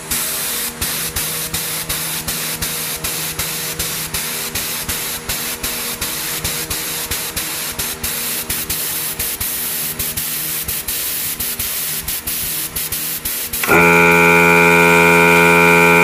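Compressed air hissing steadily out of an open spray gun held at about 2 bar, pulsing slightly about three times a second. About 14 seconds in, the Dynatec air compressor's pump motor cuts in with a loud steady hum.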